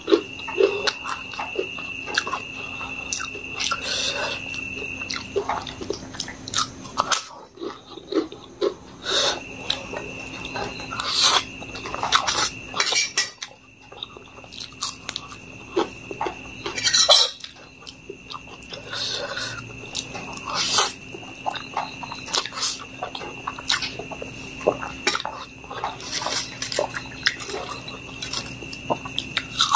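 Close-miked chewing and wet mouth sounds of someone eating instant noodles by hand, with irregular smacks and clicks and now and then a crisper bite.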